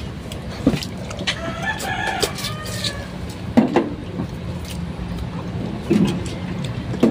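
A rooster crows once, starting about a second and a half in, over a steady low hum and scattered sharp clicks.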